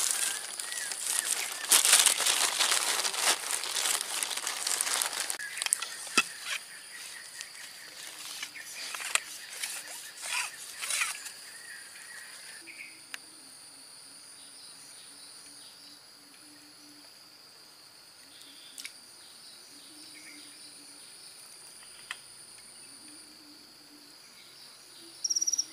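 A plastic bag crinkling and rustling for the first several seconds, then quiet outdoor background with insects droning steadily in a high, continuous whine.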